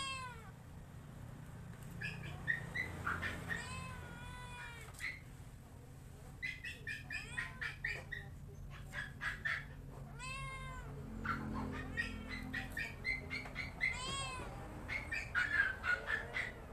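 A cat meowing repeatedly in high, rising-and-falling calls, with quick runs of short high chirps between the meows.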